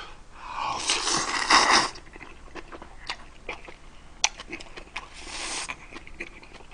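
A man slurping up instant black-bean noodles from chopsticks, a long noisy slurp in the first two seconds and a shorter one near the end, with wet chewing and small mouth clicks in between.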